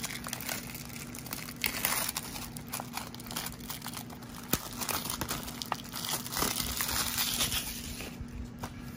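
Plastic shrink-wrap being torn and peeled off a Blu-ray case, crinkling and crackling, with busier spells about two seconds in and again around six to seven seconds.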